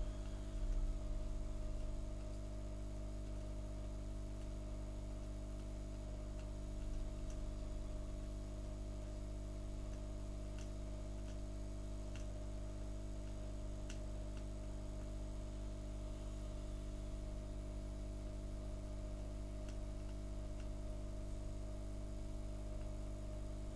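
Steady low electrical hum with a few faint ticks scattered through it.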